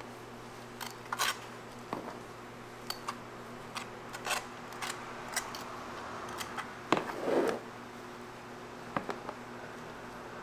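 Scattered clicks, taps and short scrapes of kitchen utensils and tools being handled while waffles are made, over a steady hum. The loudest is a sharp knock followed by a scrape about seven seconds in.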